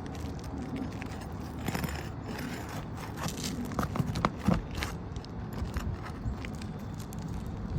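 Irregular scraping and clicking of hand tools working loose roof shingles during a shingle repair, over a steady low rumble.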